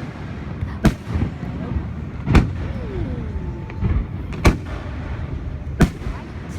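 Aerial fireworks shells bursting: four loud, sharp bangs about every one and a half seconds, with a smaller pop between them and a rumbling background between the bursts.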